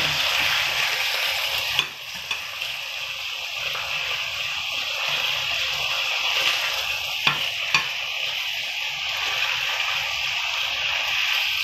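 Striploin steak pieces sizzling steadily in hot oil in a frying pan, with a few sharp clicks of a metal fork against the pan as the pieces are turned, about two seconds in and again around seven seconds.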